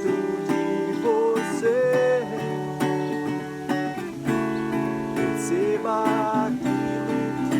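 Song with strummed acoustic guitar chords and a wavering melody line over them.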